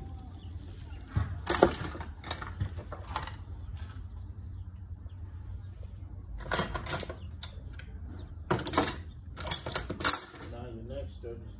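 Several short clusters of light clinks and rattles from small hard parts being handled, over a steady low rumble.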